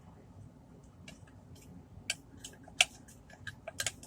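A utensil stirring a glue slime mixture in a cup, knocking against the cup's sides in irregular sharp clicks and ticks; the loudest click comes nearly three seconds in.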